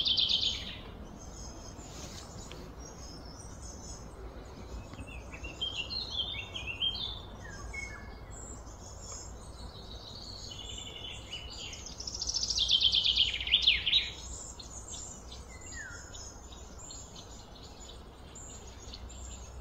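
Outdoor birdsong: several birds chirping and calling, with a loud, fast trill of repeated notes at the start and another about twelve seconds in, over a steady low background hum.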